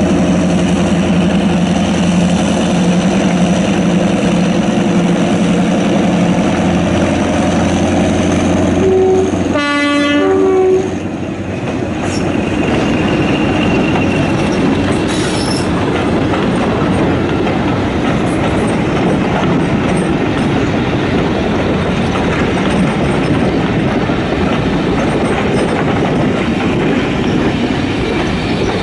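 Diesel locomotive engine running steadily. About ten seconds in, the locomotive gives a short blast on its horn. The engine note then gives way to the steady rumble of train wheels running on the rails.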